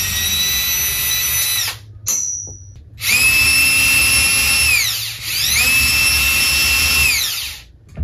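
Cordless drill/driver backing screws out of a ceiling fan's motor hub. The motor whines in several runs: one to about two seconds in, a very short blip, then two longer runs that each rise in pitch as the drill spins up and fall away as it stops.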